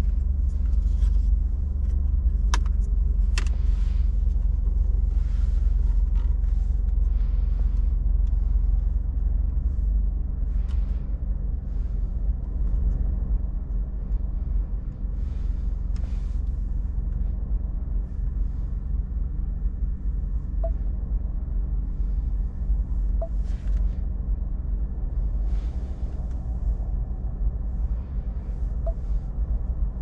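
Ford F-150's 3.5-litre EcoBoost V6 idling steadily, heard from inside the cab as a low rumble, with a couple of sharp clicks in the first few seconds.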